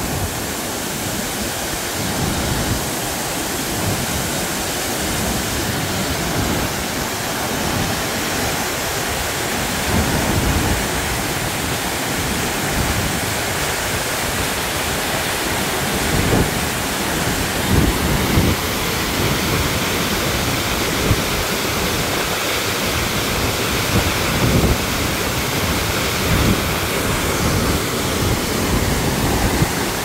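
A high-volume waterfall close by: a loud, steady rush of heavily falling water, the fall in full spate. Low, uneven rumbles come now and then from gusting wind buffeting the microphone.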